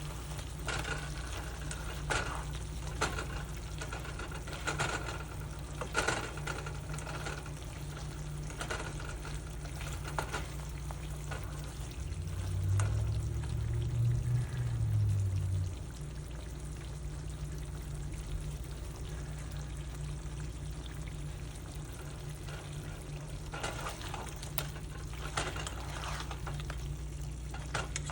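Food sizzling as it fries in a pan, with scattered clicks of a utensil stirring it. A steady low hum runs underneath and swells for about four seconds around the middle.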